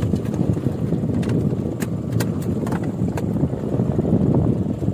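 Steady low rumble of wind on the microphone aboard a small fishing boat at sea, with scattered sharp taps and knocks every half second or so.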